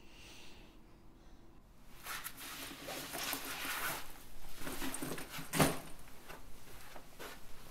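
Rustling and scraping of a fabric backpack as it is handled, beginning about two seconds in, with one sharp knock or thump near the end.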